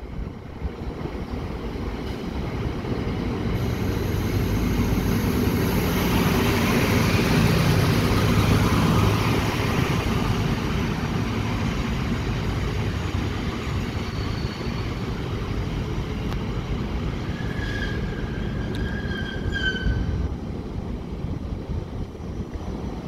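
ALn 663 diesel railcar running along the platform under diesel power, loudest about seven to nine seconds in, then easing as it moves off. A high wheel squeal comes and goes in the second half.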